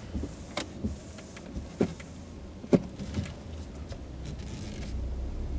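Sharp clicks from the Audi A5's centre-console buttons and gear selector being worked by hand, three plain ones with smaller ticks between them, the last the loudest. Under them the low, steady rumble of the idling engine in the cabin, growing a little louder near the end.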